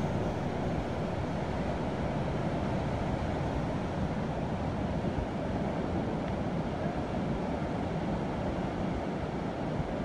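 Ocean waves breaking on rocks, with wind blowing on the microphone: a steady rushing noise.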